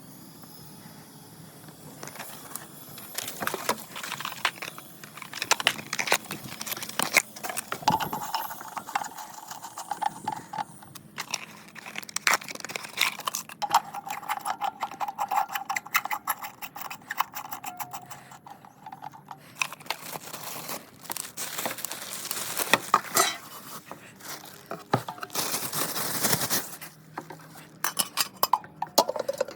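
Parts and hardware being handled during ceiling fan installation: irregular clicks, knocks and rattles. There are two stretches of a steady whine a few seconds long, about a third of the way in and around the middle.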